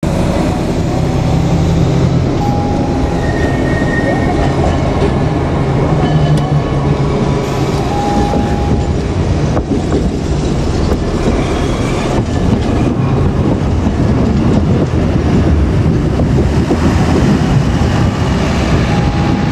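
Street traffic with a streetcar running: a steady, loud rumble, with a few brief high squeals.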